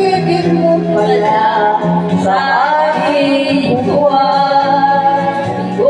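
Two women singing a karaoke duet into handheld microphones, their voices amplified through a portable rechargeable speaker over a backing track, with long held notes.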